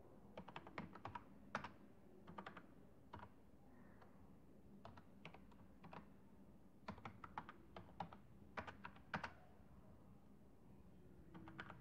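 Faint computer keyboard typing: short bursts of keystroke clicks with pauses between, over a faint steady low hum.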